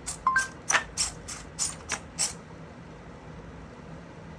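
3D-printed eight-legged spider robot clicking as it walks backward: a run of about eight sharp clicks, roughly three or four a second, with a brief beep near the start, then it stops about halfway through.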